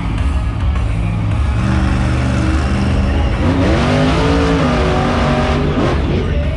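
Gas Monkey Garage monster truck's engine running loud, revving up a little over three seconds in, holding high, then sweeping again near the end.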